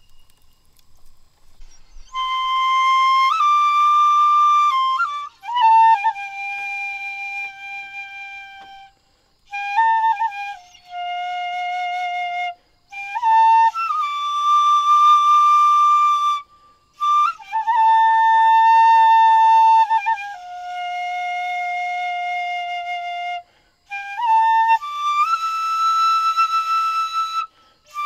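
Solo flute playing a slow melody of long held notes with short pauses between phrases, starting about two seconds in, with no accompaniment.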